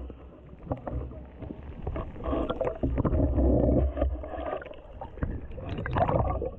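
Muffled churning and sloshing of pool water as an Asian elephant plunges and moves through it, heard from a camera underwater in a waterproof housing, with dull knocks and bubbling throughout. It is loudest for a couple of seconds in the middle.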